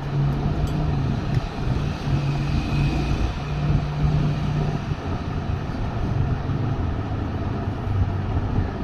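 Steady low rumble of a running engine, its hum swelling and fading a few times.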